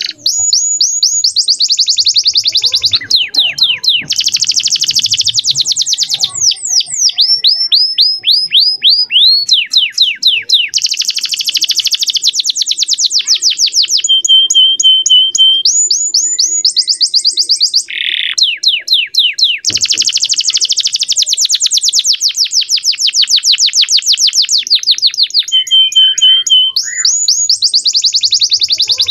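Male domestic canary singing a long, nearly unbroken song of fast trills and rapid downward-sweeping notes. A couple of short, steady whistled notes break in about halfway through and again near the end.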